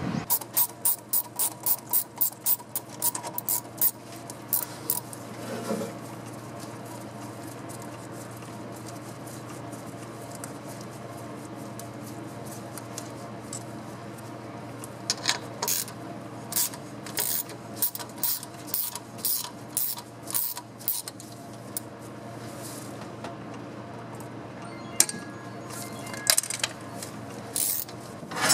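Hand ratchet wrench worked in quick, rhythmic strokes, each stroke a short burst of rasping clicks, about three a second. It comes in two runs, one at the start and another about halfway through, as fasteners on the turbo plumbing of a 6.5 turbo diesel are backed off. A faint steady hum sits underneath.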